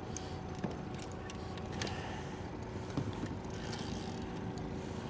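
Steady low rumble and faint hum of an idling boat motor, with a few small clicks and taps from handling a hooked fish.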